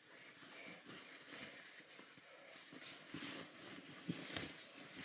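Faint, irregular rustling of clothing fabric as a person pulls on and adjusts an extra layer.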